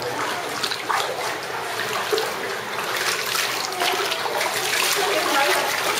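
Floodwater running and splashing across a tiled floor, a steady wash with many small splashes.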